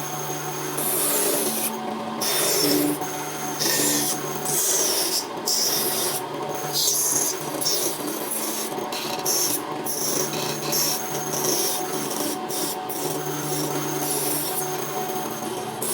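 Repeated rasping, scraping strokes on a hard surface, broken by short pauses about a second apart, over steady low tones that come and go.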